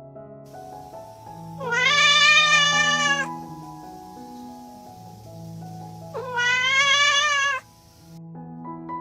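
Domestic cat giving two long meows, each about a second and a half, the first about two seconds in and the second about six seconds in.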